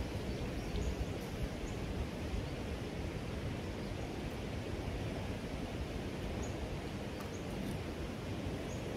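Steady rushing of a river flowing over rocks, with a few faint, short high bird chirps scattered through.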